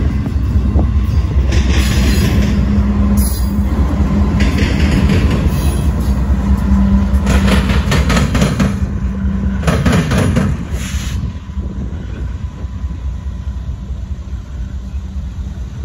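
BNSF diesel locomotive working as a rear distributed-power unit, under power shoving the train as it passes close, with a steady engine drone over a deep rumble. Bursts of steel wheel clatter and squeal come every couple of seconds. The sound drops off at about ten seconds as the unit draws away.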